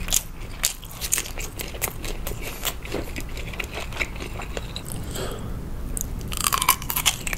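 Close-miked chewing of crisp air-fried Vienna sausage, a run of short wet clicks and crunches. Near the end comes a burst of loud crunching as a whole oiji, a Korean salted cucumber pickle, is bitten into.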